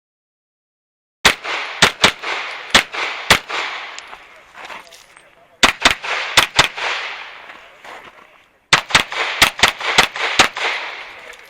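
Handgun shots in rapid strings: after about a second of dead silence, roughly five shots, a short pause, four more, another pause, then about six more, each shot followed by a decaying echo.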